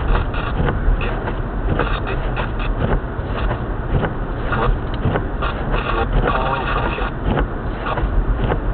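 A vehicle driving: a steady low rumble of engine and road, with frequent short ticks and knocks throughout and a brief tonal sound about six seconds in.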